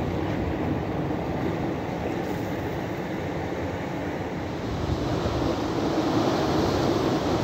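Sea surf washing and breaking over a rocky shore, with wind rumbling on the microphone; the surf grows louder about two-thirds of the way through.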